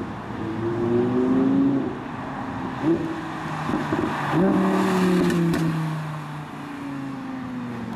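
A 2015 Audi R8 V10 Plus's 5.2-litre V10 revs up and down as the car drives past, louder about a second in and again around the middle, where its pitch falls away. Sharp exhaust crackles break through, which sound insane.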